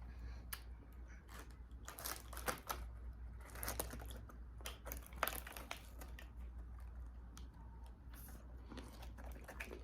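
A person eating close to the microphone: chewing, with irregular small crinkles and clicks from handling food and its container, over a low steady hum.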